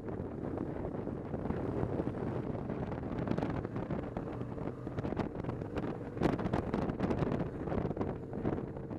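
Wind rushing over the microphone on a moving motorcycle, with the bike's engine running steadily underneath at road speed.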